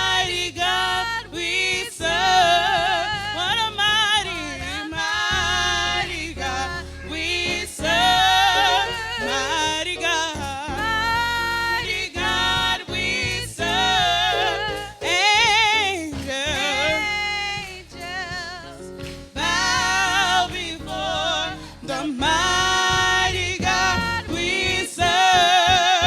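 Gospel worship singing, sung phrases with wavering, sliding pitch, over steady low instrumental accompaniment.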